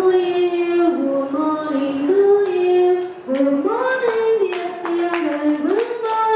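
A woman singing a simple melody into a handheld microphone, holding each note and stepping up and down in pitch. From about four seconds in, hand claps join in along with the song.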